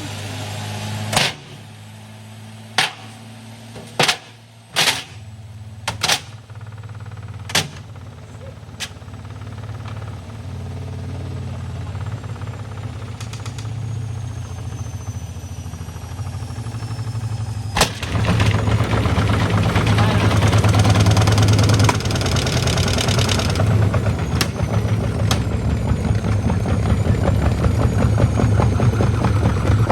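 Hotpoint FMG723 washing machine with a steady low hum, broken by six loud bangs in the first eight seconds. About eighteen seconds in there is a click, and then the hum gets louder, with a rushing noise over it.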